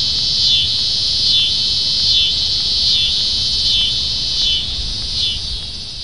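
Insect chorus: a loud, dense, high buzz that swells and eases roughly once a second.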